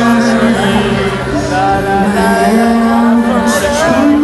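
Live concert music from the audience: a lead vocal singing a slow melody with held notes over piano and drums.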